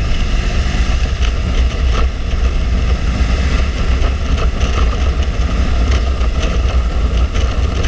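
Harley-Davidson Street Glide Special's V-twin engine running steadily at cruising speed, with a heavy, steady wind rumble over the microphone.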